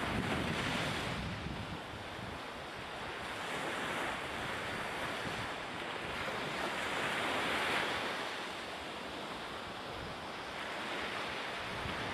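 Sea water rushing and splashing with wind buffeting the microphone, swelling and easing every few seconds.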